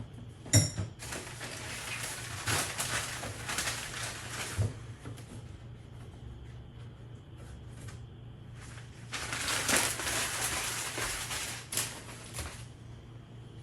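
A new BBR fork spring scraping and rattling against the inside of the fork tube as it is slid into a CRF125F front fork. It starts with a sharp click, then comes in two stretches of scraping a few seconds apart.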